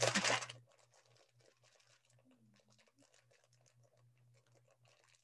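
A short burst of noise in the first half second, then near silence with faint scattered ticks and rustles of craft materials being handled on a table, over a low hum.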